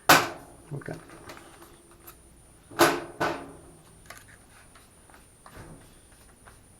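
Hard knocks with a short metallic ring from work on metal wall-shelving tracks and their drywall anchors: one right at the start, then two in quick succession about three seconds in, with lighter taps and clicks between.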